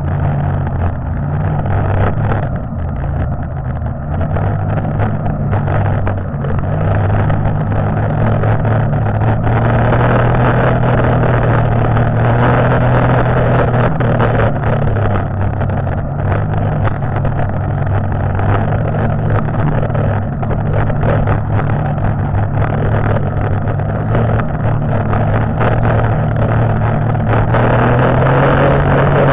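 1992 Arctic Cat Panther snowmobile's two-stroke engine running steadily under way on the trail, with an even rush of track and snow noise over it. The engine pitch shifts in steps and climbs near the end.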